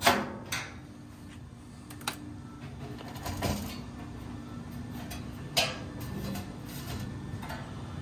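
A few scattered light knocks and clanks of sheet metal as a furnace blower assembly is handled: the galvanized blower housing and its steel mounting bracket. The sharpest clank comes right at the start.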